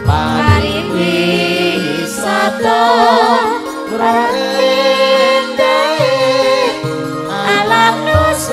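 Live langgam campursari music: a woman singing into a microphone with a wide, wavering vibrato over electronic keyboard accompaniment.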